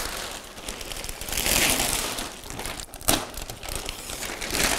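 Shiny metallized plastic wrap being pulled and crumpled by hand, crinkling unevenly, with a sharp crack about three seconds in.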